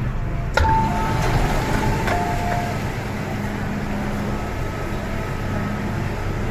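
Busy underground metro platform: a steady low rumble and hum under crowd noise. A sharp knock comes about half a second in, followed by a steady tone that steps down to a lower pitch at about two seconds and stops shortly after.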